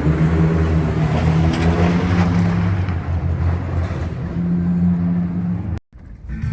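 Toyota Tundra pickup's engine running steadily under way off-road, with a haze of driving noise. The sound cuts off abruptly near the end.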